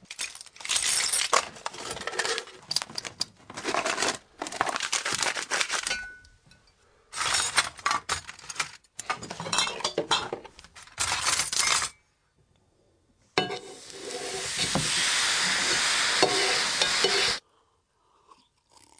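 Foley sound effects being made: dense bursts of clattering and clinking of hard objects for much of the first twelve seconds, then a steady hiss lasting about four seconds that cuts off suddenly.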